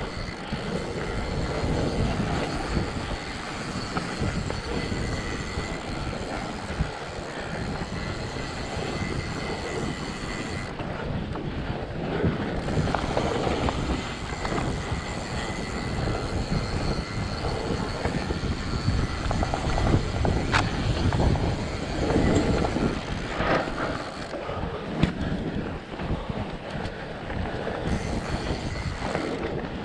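Ride noise picked up by a handlebar-mounted camera on a fat bike rolling down a snowy trail: the rumble of the tyres over packed snow and wind buffeting the microphone, with scattered knocks and rattles from the bike over bumps.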